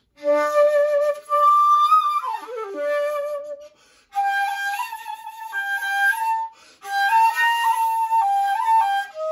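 Shakuhachi, a five-hole end-blown bamboo flute, playing a slow melody in three phrases of held notes with short breaths between them. Near the end of the first phrase the pitch slides down.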